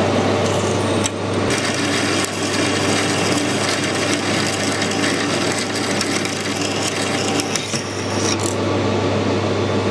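Metal lathe running while a large twist drill, fed from the tailstock, drills into the end of a spinning bar. Steady cutting noise over a constant low hum from the machine, with scattered ticks.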